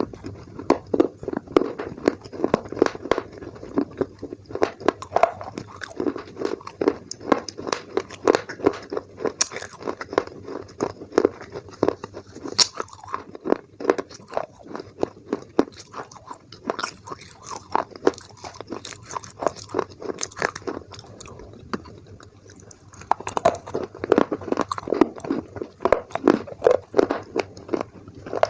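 Close-up crunching and chewing of baked clay: dense, irregular crackling bites and chews, easing off briefly about three quarters of the way through before starting up again.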